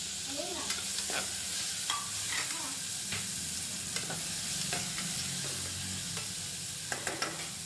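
Chopped potato, carrot and tomato sizzling in hot oil in a pressure cooker pot while being stirred: a steady frying hiss with short scrapes and knocks of the stirring against the pot.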